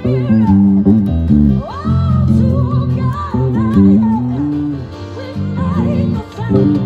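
Electric bass guitar playing a busy, moving bass line under gospel music, with a voice singing gliding phrases over it.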